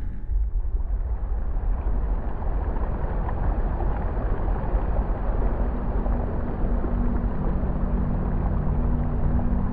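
Ambient installation soundscape: a steady, rumbling wash of noise, with a chord of low sustained drone tones fading in about halfway through.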